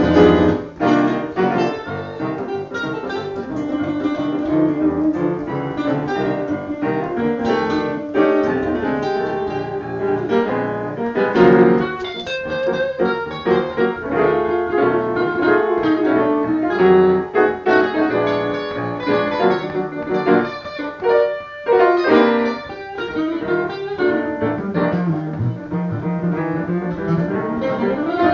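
Piano and electric guitar playing a tune together.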